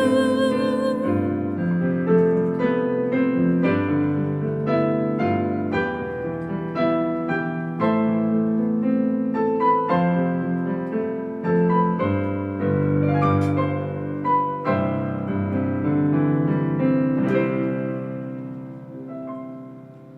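Solo piano playing the closing passage of a song, one struck chord or note after another, fading out near the end. A held note from another instrument stops about a second in.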